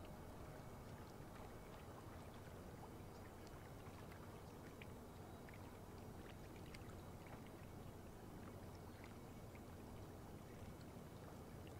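Faint harbor-side ambience: a steady low rumble with scattered small ticks.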